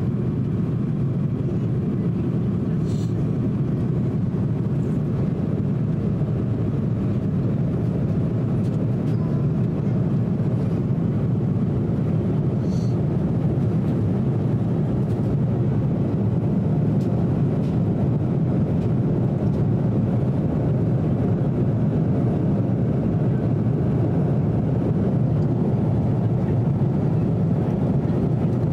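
Steady cabin roar of an Airbus A330-300 in flight, engine and airflow noise heard from a passenger seat, with most of the sound low and even. A couple of faint light clicks, at about three seconds and about thirteen seconds.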